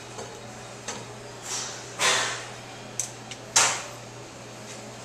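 Hands fitting a PVC drain pipe into a rubber coupling boot under a stainless steel strainer box: two light clicks and three scraping, sliding rubs, the loudest about two seconds in, over a steady low hum.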